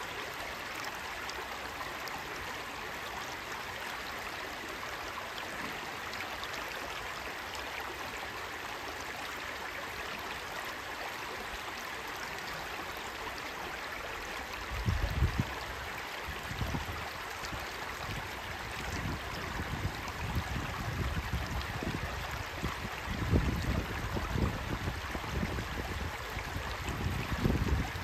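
A shallow, rocky woodland stream babbling steadily over stones. From about halfway through, irregular low rumbling gusts of wind on the microphone come and go and are the loudest thing.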